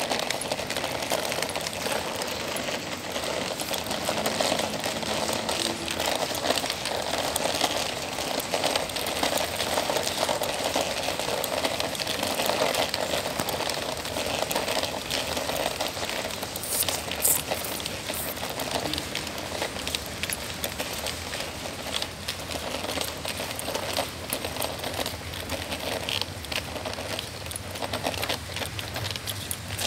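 Rain pattering steadily close to the microphone, a dense run of small ticks.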